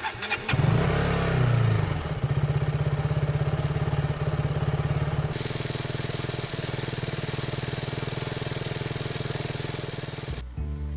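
Motorcycle engine starting: a brief crank, then it catches, revs once and settles into a steady, pulsing idle. Music comes in near the end.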